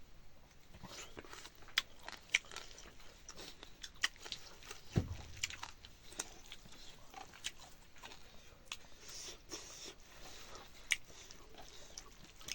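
A person eating: irregular crunches and clicks of chewing and of food being handled, with one dull thump about five seconds in.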